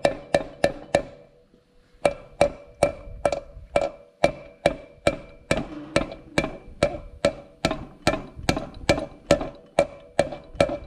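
Sharp metallic taps, about two to three a second with a short ring after each, driving a new check ball capsule into a 4L60E transmission case. The tapping pauses briefly about a second in, then carries on steadily.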